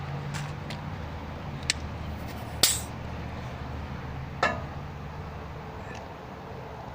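Steady low drone of nearby freeway traffic, with a few sharp clicks and a metallic clink that rings briefly, from handling the repair stand's air pump and the bicycle. The loudest click comes about two and a half seconds in, the ringing clink about four and a half seconds in.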